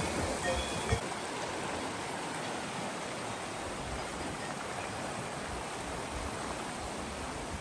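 Steady rushing of flowing water, like a mountain stream, with one brief knock about a second in.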